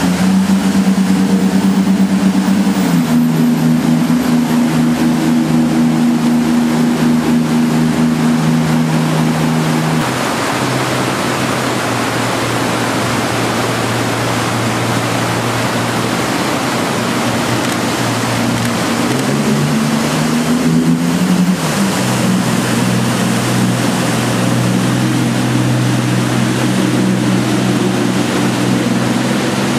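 Twin Yanmar diesel engines of an aluminum jet boat running hard through river rapids, over the rush of whitewater. The engine note shifts a few times and climbs, then drops, about two-thirds of the way in.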